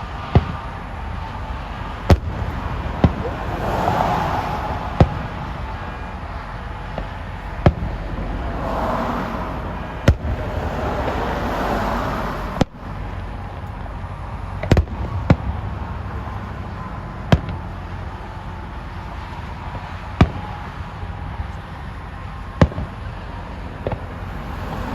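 Fireworks going off: about a dozen sharp bangs, a second or more apart, with stretches of crackling around four seconds in and again from about nine to twelve seconds in.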